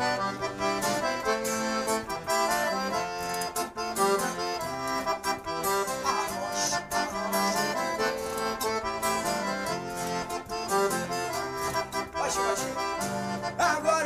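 Piano accordion playing an instrumental solo in a sertanejo song, a lively melody over held chords, backed by strummed acoustic guitar.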